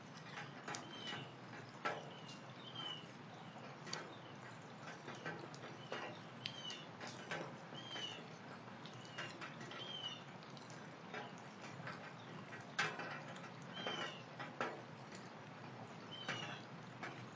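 Rain dripping and pattering in a thunderstorm, with scattered sharp drips. An animal's short high chirp repeats every second or two over it.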